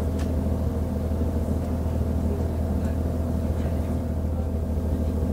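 Class VT 628.4 diesel railcar's MTU 12V183 TD13 V12 diesel engine running steadily, heard from inside the car as a deep, even drone.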